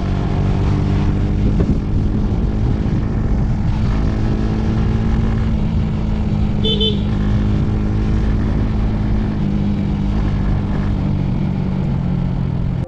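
Motorcycle engine running steadily while riding, with road and wind noise. A brief high-pitched beep sounds about seven seconds in.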